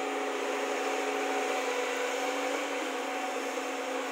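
Diesel engine of a JCB tracked excavator running steadily while it digs, a constant drone of a few steady tones over a hiss.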